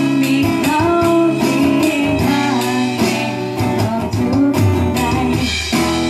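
Live band playing a song: guitar and a singing voice over regular drum hits.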